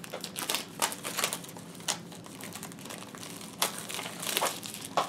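Plastic shrink wrap being peeled and pulled off a boxed brush kit, crinkling in irregular sharp crackles.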